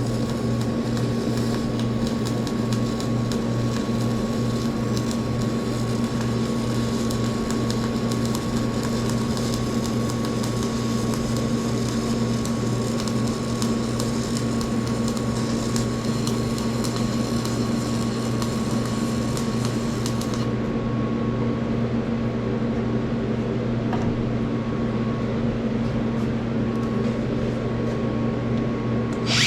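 A steady, even electrical or mechanical hum with a faint thin whine above it, unchanging throughout.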